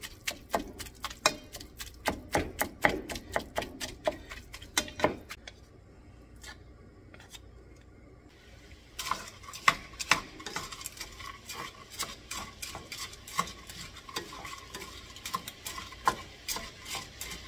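Plastic meat chopper mashing and scraping ground beef and sausage against a nonstick pot: quick clicks and scrapes, easing off for a few seconds in the middle, then going on. Under it the meat sizzles faintly as it browns.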